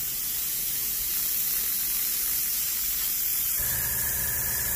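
Gravity-feed airbrush spraying a fine coat of chipping fluid: a steady hiss of air and atomised fluid. A low steady hum joins it about three and a half seconds in.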